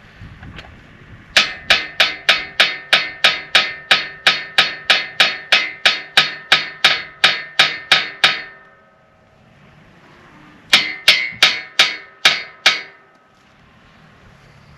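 Hammer striking steel on a disc harrow, each blow ringing with a metallic tone. A quick run of about twenty-five blows, roughly four a second, comes first, and after a pause of about two seconds, six more.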